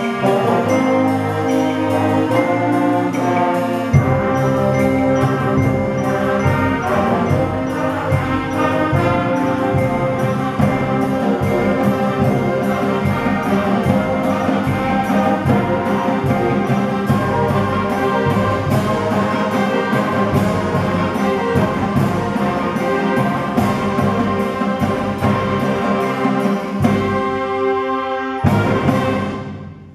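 A school concert band of flutes, clarinets and brass playing a piece, with a steady drum beat coming in about four seconds in. It closes on a short final chord near the end that dies away in the hall.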